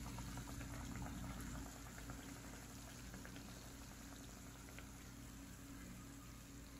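Breadcrumb-coated banana pieces frying in hot sunflower oil: faint, steady bubbling and crackling of the oil, with a low steady hum under it. The crackle is a little louder in the first two seconds, then settles.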